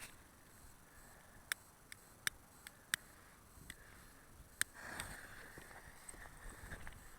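Faint, scattered sharp crackles from a vipère fountain firework, about half a dozen spread over a few seconds, over a faint hiss that swells slightly about five seconds in.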